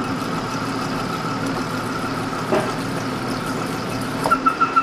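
1A616 lathe turning a steel bar on a heavy 7 mm deep cut at 0.2 mm per revolution, its spindle motor driven directly by a frequency inverter with no gearbox. It gives a steady whine over the cutting noise, with a few sharper crackles near the end. The motor is under load but keeps pulling through the cut.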